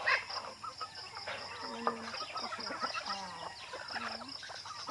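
A flock of native chickens clucking and calling, many short calls overlapping, over a high, evenly pulsing chirp.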